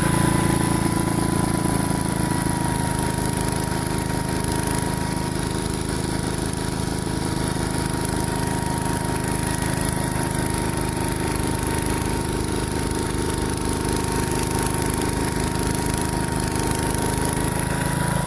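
1968 Gravely Commercial 10A walk-behind tractor with its rebuilt single-cylinder Kohler 241 engine running steadily, driving a Snow Cannon snow blower, with a steady thin whine over the engine.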